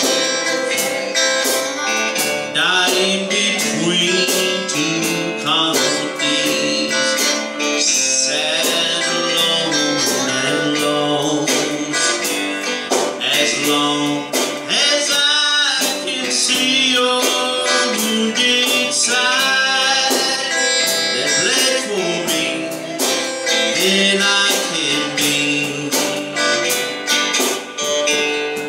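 Country gospel music led by an electric guitar, with a man's voice singing at times.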